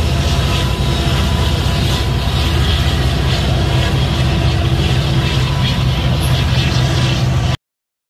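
Pair of Union Pacific diesel locomotives passing: a steady engine drone with wheel and rail noise. It cuts off abruptly near the end.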